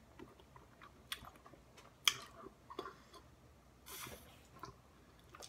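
Faint wet clicks and smacks of a mouth working a very large wad of bubble gum, with a short puff of breath around four seconds in as a small bubble is blown.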